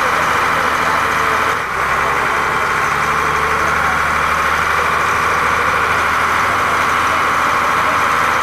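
Passenger ferry boat's diesel engine idling steadily while moored at a jetty; its low note shifts slightly about two seconds in.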